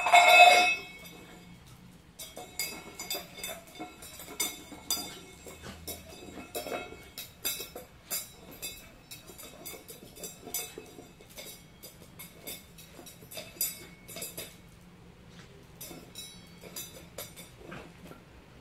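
Small metal bowl being pushed and knocked around on a hardwood floor by a dog: a loud ringing clatter right at the start, then many lighter clinks and scrapes of metal on wood.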